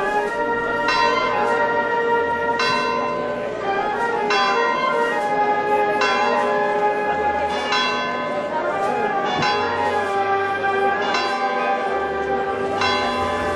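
Church bells ringing, struck about once a second, each stroke ringing on into the next.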